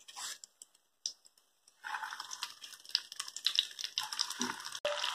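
Pumpkin fritter batter dropped into hot oil in a pot. After a few scattered clicks, the oil starts sizzling and crackling about two seconds in and keeps on, with a dull knock near the end.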